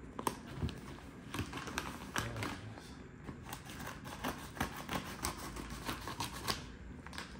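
Irregular small clicks, taps and rustles of a package being opened and its contents handled.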